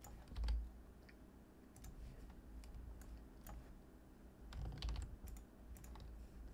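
Scattered computer keyboard keystrokes and mouse clicks, with a denser run of clicks and a soft low thump near five seconds in.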